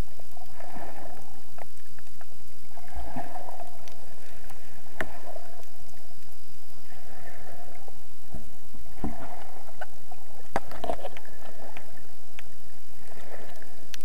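Water sloshing and swishing against a waterproof action-camera housing held just under the surface, heard muffled through the housing: a soft swish about every two seconds, with scattered sharp clicks and a faint steady high whine.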